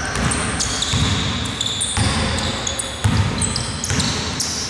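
Basketball dribbled on a hardwood gym floor: a steady series of bounces.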